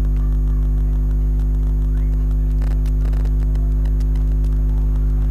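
Steady electrical mains hum, a buzzy drone with many overtones that holds unchanged throughout, with a few faint ticks a few seconds in.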